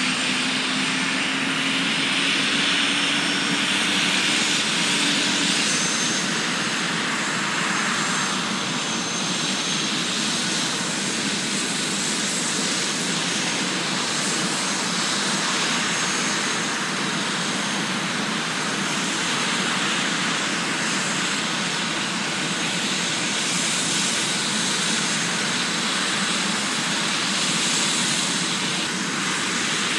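Airbus Helicopters H145 D3's twin Safran Arriel 2E turboshaft engines running during startup, a steady turbine whine and rush, with a low tone rising slightly over the first few seconds.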